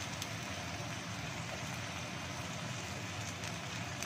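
Green beans and carrots frying in a wok on a stove: a steady low rumble from the burner under a soft hiss of frying, with a few faint light clicks.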